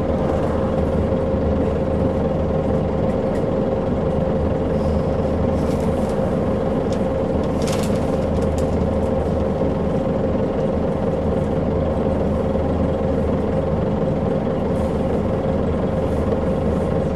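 Volvo B10BLE single-deck bus standing with its diesel engine idling: a steady low rumble with a steady whine over it, heard from inside the saloon. A short hiss comes about halfway through.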